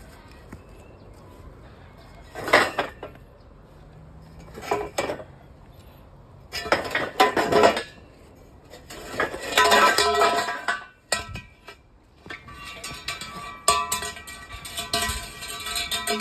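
Steel shoring props clanking against one another as they are pulled from a pile, in several separate bursts of clatter. Music with plucked strings comes in over the last few seconds.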